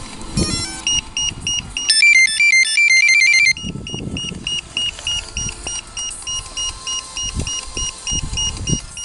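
Iris+ radio control transmitter beeping. A short rising chime comes first, then a loud quick tune of beeps about two seconds in, then a steady string of short high beeps about three a second that keeps on; a few dull knocks sound under it.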